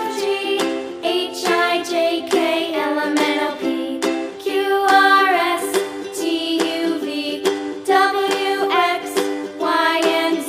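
Background music: a plucked-string accompaniment under a bending melody line.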